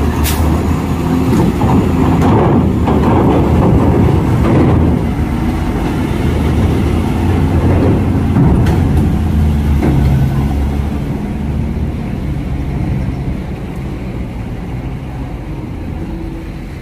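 A heavy truck's diesel engine running under load as it drives onto the ferry. It is loudest in the first half and slowly fades as it moves away, with a sharp knock just after the start.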